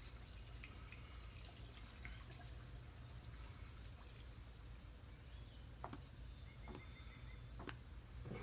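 Faint ambience: a steady low hum under a short high chirp that repeats about three times a second, with a few soft clicks about six to eight seconds in.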